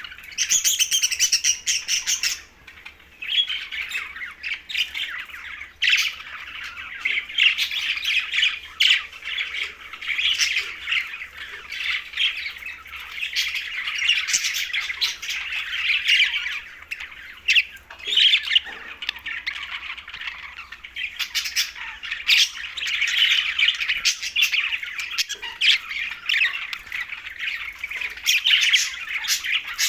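A group of budgerigars chattering, with continuous warbling and frequent sharp squawks and chirps.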